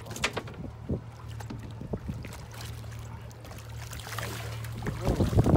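A hooked fish splashing at the water's surface beside a boat, with scattered slaps early on and a louder burst of thrashing spray about four seconds in. A steady low hum runs underneath.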